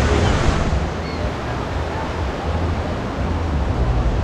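Ocean surf washing steadily on the beach, with wind buffeting the microphone in an uneven low rumble.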